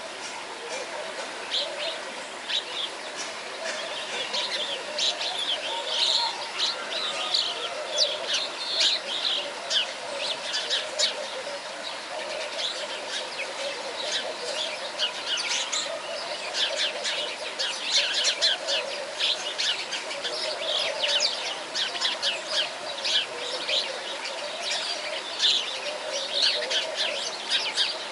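Many small birds chirping and twittering, short quick calls overlapping densely throughout.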